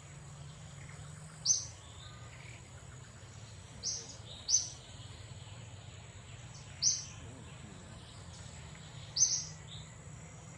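A bird giving short, sharp, high chirps, one every two to three seconds, five or so in all, over a steady thin high-pitched tone and a low background hum.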